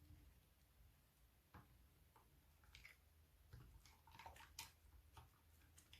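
Slime being handled and squeezed, giving faint, irregular soft squishes and small clicks, about seven over a few seconds.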